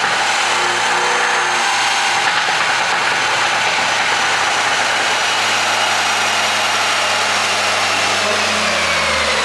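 Mercedes-Benz W213 E300's turbocharged four-cylinder engine running steadily over road noise as the car drives. Over the last few seconds its pitch falls slowly as it eases off.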